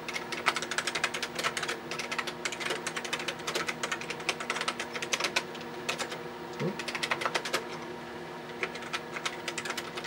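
Typing on the TRS-80 Model 16B's keyboard: quick runs of key clicks, with a couple of short pauses, over a steady hum.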